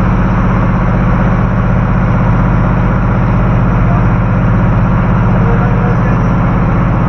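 Boat engine running steadily under way, a loud low drone.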